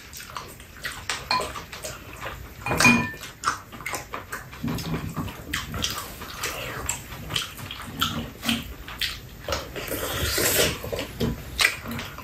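Two people eating soy sauce braised chicken: chewing and mouth noises, with spoons and chopsticks clicking against bowls and a metal pan many times.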